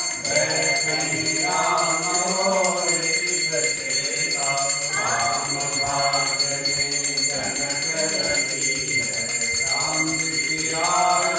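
Group of voices singing a Hindu aarti hymn in unison, with a bell rung rapidly and continuously over it.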